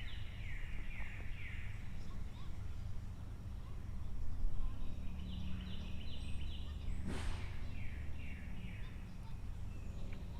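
A songbird singing: three short phrases of quick, high, descending notes, over a steady low hum. A brief sharp noise about seven seconds in.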